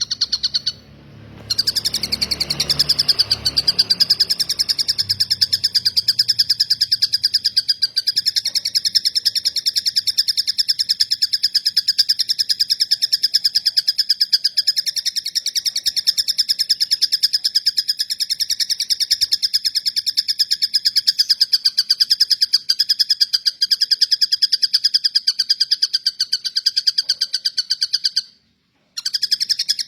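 Tengkek buto (collared kingfisher) giving its 'cililin' call: a continuous, very fast, high-pitched trill. It is broken by a brief pause about a second in and a short pause near the end, with a low rumble under the first few seconds.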